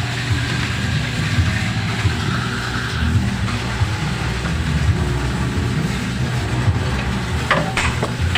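A vehicle engine running steadily with a low, fluctuating hum, with a few sharp clicks near the end.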